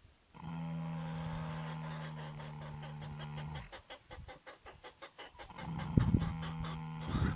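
Horse snoring: a long, steady, droning breath, then about two seconds of fast fluttering rattle, then the drone starting again, broken twice by short louder puffs.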